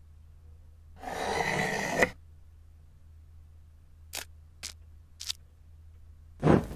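A rustling scrape about a second long, then three sharp plastic clicks as LEGO candle stacks are snapped onto a LEGO brick cake, and a loud sudden burst right at the end.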